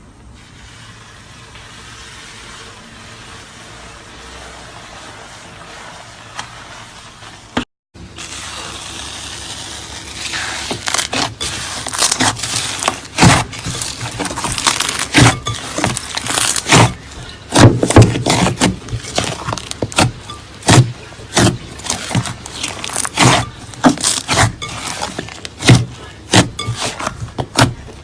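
Bubbly slime worked by hand, first faint and steady, then from about ten seconds in a dense run of sharp, irregular pops and clicks as the air bubbles in it burst.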